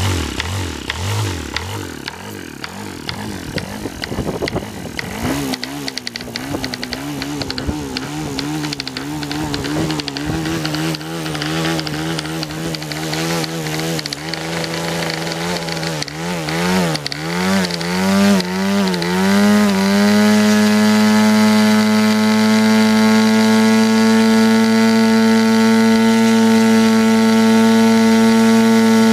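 Fox .50 model aircraft engine with a Davis diesel conversion, a two-stroke compression-ignition engine, driving a 14x6 APC propeller. It catches and runs unevenly at first, its pitch wavering and surging with stepped rises in speed. About twenty seconds in it settles into a steady, high-revving run.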